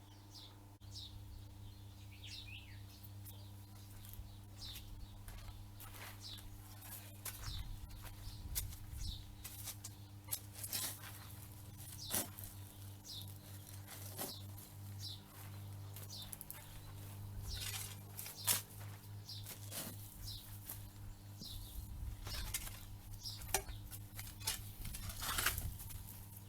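Small birds chirping on and off, with occasional short scrapes and knocks of digging in the soil around the dead tree's roots.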